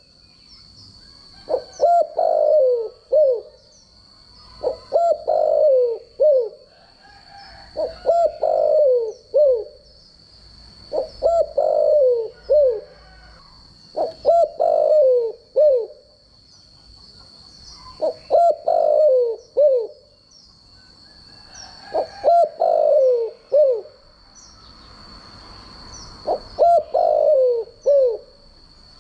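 Spotted dove cooing: a short multi-note coo phrase repeated about every three to four seconds, eight times.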